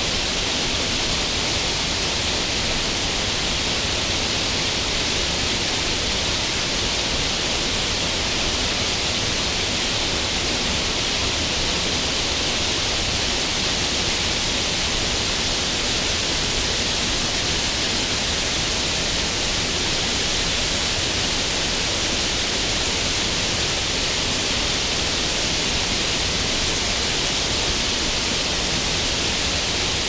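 Two-stream waterfall pouring over rock into a pool: a steady, dense rush of falling water, hissy and bright, with no change throughout.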